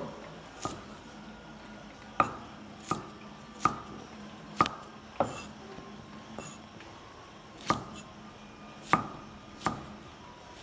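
Cleaver chopping vegetables on a thick round wooden chopping block: about nine separate, unhurried chops at uneven spacing.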